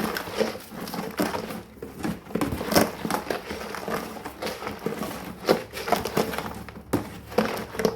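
Metal pry bar stirring and knocking through a slurry of dry ice chunks and isopropyl alcohol: a dense run of irregular scraping, clinking and crunching, with sharper knocks a few times.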